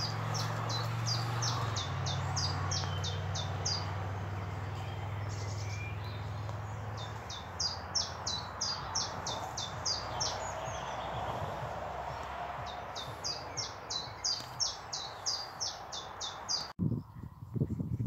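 A songbird singing rapid runs of short, high repeated notes, about three a second, in three bouts of a few seconds each, over a low steady hum that fades after the first few seconds. Near the end, footsteps.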